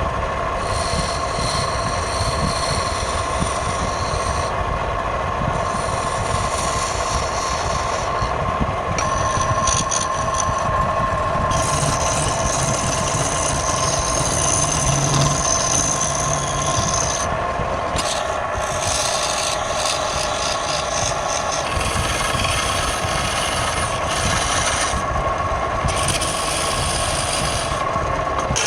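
Wood lathe running with a steady motor whine while a turning tool rubs and scrapes against the spinning wood, the rasping hiss coming and going every few seconds.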